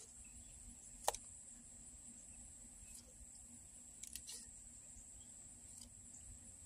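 Near silence with a faint, steady high-pitched whine and a few soft clicks, the sharpest about a second in.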